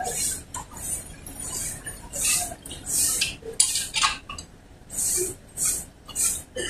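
Hand tool working metal at the front drum-brake hub of a Honda TMX 125: a string of short metallic strokes, one or two a second, with a couple of sharp clinks about halfway through.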